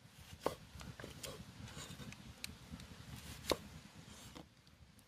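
Knife chopping food in a few sparse strokes, the two loudest knocks about three seconds apart, with lighter taps between.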